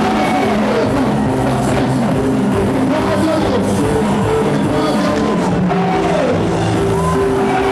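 Church worship music from a band, with guitar, drums and voices singing.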